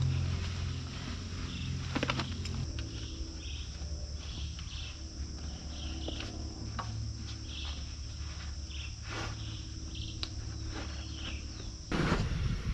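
Insects buzzing steadily in riverside trees, with short chirps repeating every second or so, over a low steady hum. A louder rustle of handling comes near the end.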